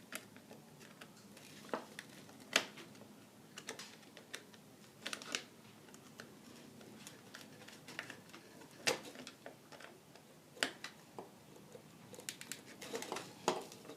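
Faint, irregular light clicks and taps of hands connecting wires to light switches.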